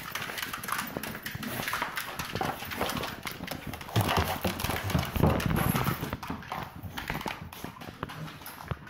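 Footsteps and handling noise from a hand-held phone carried while walking: an irregular run of clicks, knocks and rustling, with a few heavier bumps about four and five seconds in.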